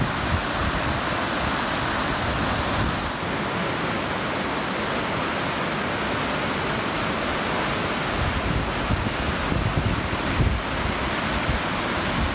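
Whitewater river rapids rushing steadily over rocks, with wind rumbling on the microphone now and then, most near the start and in the last few seconds.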